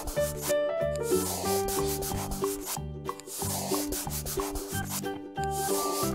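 A scratchy pen-on-paper drawing sound, in long strokes with short breaks, over a simple background tune.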